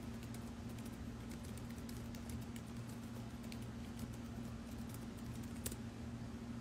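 Faint, scattered fingertip taps and clicks on a device, over a steady low hum; one click a little louder near the end.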